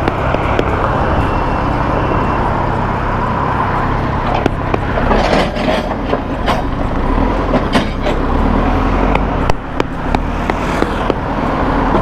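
A loader's diesel engine running steadily, with scattered knocks and clanks between about four and eleven seconds in.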